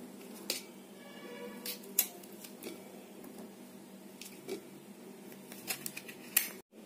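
Knife clicking and scraping against a stainless steel plate as bottle gourd pieces are cut and the pulp scooped out: scattered sharp clicks over a faint background.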